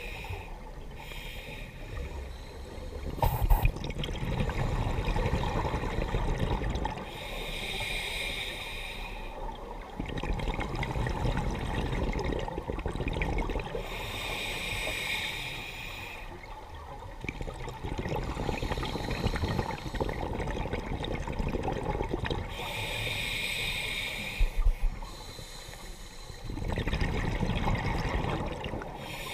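Scuba diver breathing through a regulator underwater: a short hissing inhale with a faint whistle, then a longer stretch of rumbling, bubbling exhaled air. The cycle repeats about every six to seven seconds, with four exhales.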